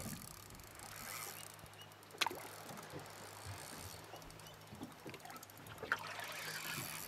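Small waves lapping against an aluminium boat's hull, under a faint low steady hum. Two sharp knocks, about two seconds in and about six seconds in.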